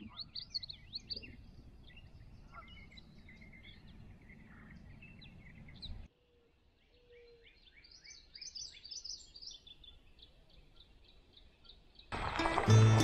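Several songbirds chirping and trilling over a low steady background rumble, broken by an abrupt cut about halfway through, after which the birdsong carries on. Loud music starts about a second before the end.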